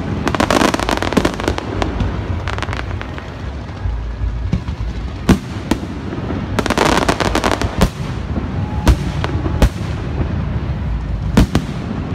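Large fireworks display: aerial shells bursting with scattered sharp bangs, and two spells of dense rapid crackling, one just after the start and one around the middle, over a constant low rumble.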